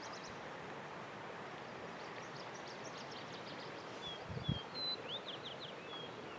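Bird calls high in pitch: quick series of short chirps, then in the second half short whistled notes, some falling and some sharply rising. A steady outdoor hiss lies underneath, and a brief low thump comes about four and a half seconds in.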